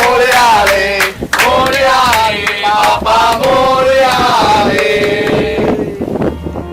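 Devotional Hindu chant sung by a group of male voices, with regular drum beats and a low pulse underneath; the voices hold a long note near the end.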